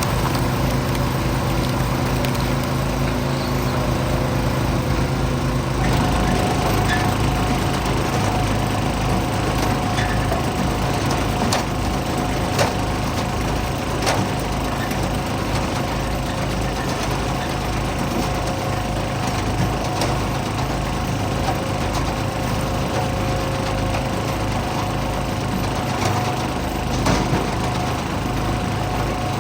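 Small gasoline engine running steadily, its note changing about six seconds in, with a few sharp knocks or cracks of wood through it.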